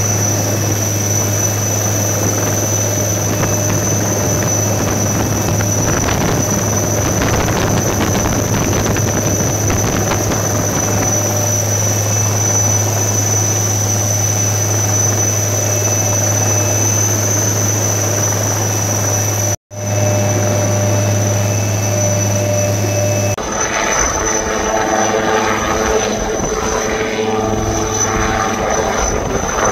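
Helicopter engine and rotor noise, a steady loud hum with a high whine, heard from inside the cabin with the side door open during a winch hoist. It cuts out for an instant about two-thirds through. About 23 seconds in, it changes to the same kind of helicopter, an ALH Dhruv, heard hovering from the ground.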